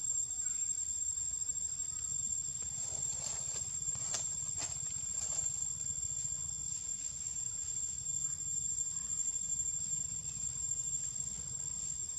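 Outdoor ambience: a steady, high-pitched insect drone over a low rumble, with a few faint short clicks or squeaks about three to five seconds in.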